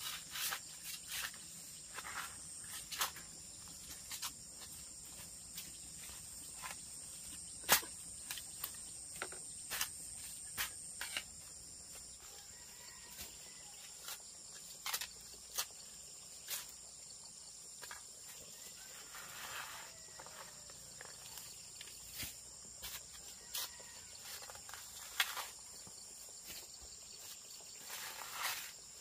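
Insects droning steadily at a high pitch, with irregular sharp clicks and knocks over them, the loudest about eight seconds in.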